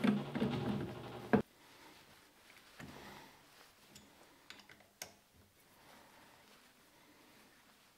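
Faint metallic clicks and taps from hand work on a lathe's compound slide with a hex key. A louder stretch at the start stops abruptly with a sharp click about a second and a half in; a few light, scattered clicks follow.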